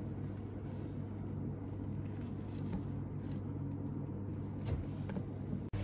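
Steady low mechanical hum with a few faint rustles and light clicks; the sound drops out for an instant near the end.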